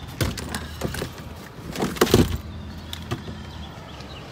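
Luggage being handled in an open car trunk: a few light knocks, then a loud scraping slide about two seconds in as a suitcase goes in, and two sharp clicks near the three-second mark.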